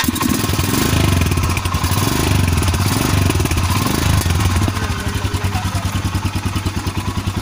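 Royal Enfield Himalayan's single-cylinder engine running just after a restart, with its air filter out of the open airbox because water got into the filter. It runs a little louder for the first few seconds, then settles slightly quieter.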